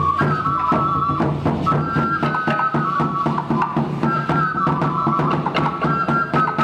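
Live music: a flute plays a high melody, repeating a short falling phrase, over a fast, even rhythm of drums and plucked or struck accompaniment.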